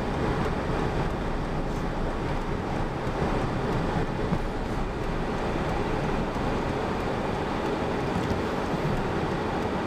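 Steady road and engine noise heard inside a truck's cab while driving, an even rushing hiss with no distinct events.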